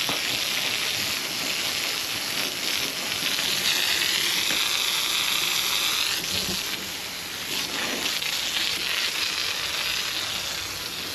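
Garden hose spraying water onto concrete steps, a steady hiss that wavers in pitch about midway as the spray moves, washing off drywall dust.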